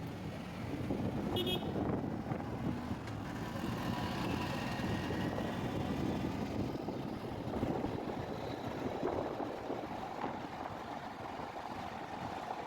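Steady road traffic noise: a rumble of engines and tyres, with a brief high beep about a second and a half in.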